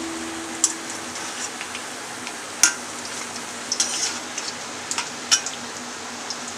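Battered spinach-leaf fritter deep-frying in hot oil in a kadhai: a steady sizzle with a few sharp clicks scattered through it.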